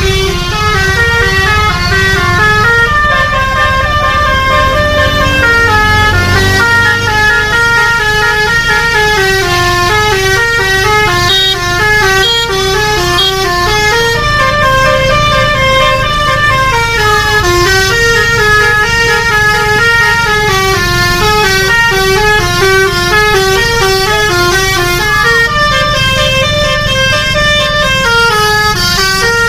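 Basuri telolet horn on an RJB Trans bus playing a long melody, several horn tones sounding together and stepping from note to note several times a second, over the running bus engine.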